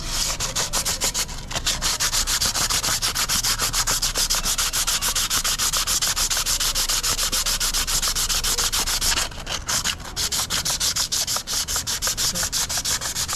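Abrasive paper scrubbed in quick, even back-and-forth strokes against a motorcycle's steel rear brake disc, scuffing off the scoring left by pads worn down to their metal backing, which made the brakes noisy. The strokes break off briefly twice a little past the middle.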